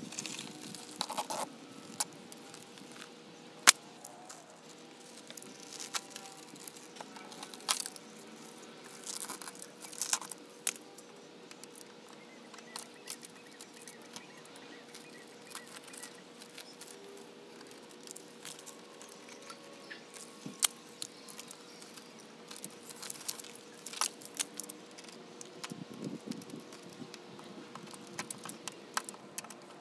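Shattered tempered glass of a car's rear quarter window being picked and broken off the frame by hand: scattered irregular clicks, snaps and crackles of small glass fragments, with the sharpest snap about three and a half seconds in.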